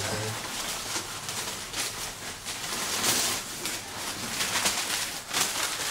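Rustling and scuffling of golden retriever–Irish setter puppies moving about and being handled, an uneven hissing noise with many small scrapes and knocks.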